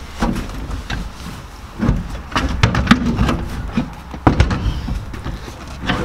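A car's front bucket seat being lowered and worked into place on the floor pan: an irregular series of knocks, thumps and scrapes as the seat frame bumps against the floor and body.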